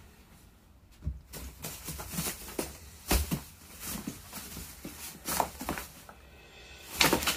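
Irregular rustles, scrapes and knocks, a few a second, from plastic dust sheets and scraps of stripped wallpaper being disturbed, starting about a second in, with a louder knock about three seconds in.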